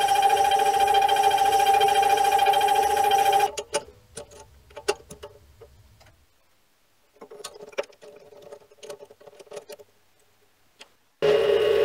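Mini lathe running with a steady whine while a boring tool cuts an internal taper, cutting off abruptly about three and a half seconds in. Scattered light clicks and knocks follow as the workpiece and chuck key are handled at the four-jaw chuck. The lathe starts running again abruptly near the end.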